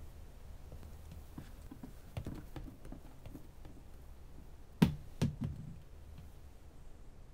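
A few faint taps, then one sharp knock nearly five seconds in, followed at once by two softer thumps.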